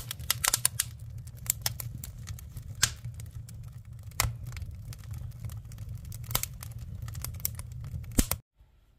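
Freshly lit wood fire crackling: split logs over burning kindling give irregular sharp pops and cracks over a low steady rumble. It stops abruptly near the end.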